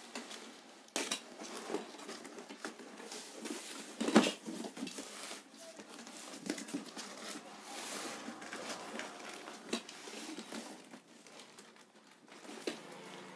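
Corrugated cardboard box being slit open with a utility knife: the blade scraping through packing tape and cardboard, with crinkling and rustling as the box is handled, and a single loud thump about four seconds in.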